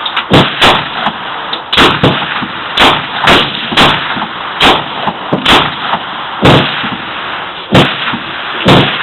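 Colt semi-automatic pistol fired shot after shot, about a dozen single sharp reports at uneven spacing, several close together in the first half.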